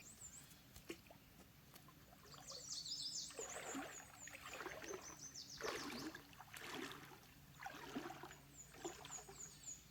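Faint trickling and splashing of water, with short high chirps of a bird twice, about three seconds in and again near the end.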